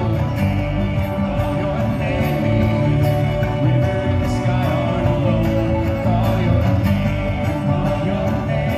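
Live string band playing, with banjo and acoustic guitar, and voices singing into microphones.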